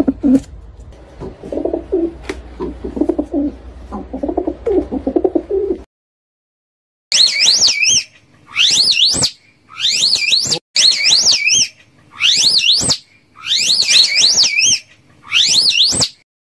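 Pigeons cooing over a low steady hum. After a short silence about six seconds in, a slow loris gives a series of about seven high, wavering calls, each under a second long, with short gaps between them.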